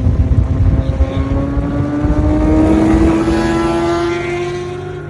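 A car engine accelerating, its note rising steadily over about four seconds and growing louder, then fading near the end. Wind buffets the microphone during the first couple of seconds.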